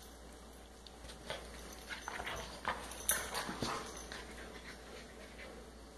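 A puppy and a larger dog playing rough together, with short dog noises and scuffling that come in an irregular run from about a second in until about four and a half seconds. The loudest is a sharp sound about three seconds in.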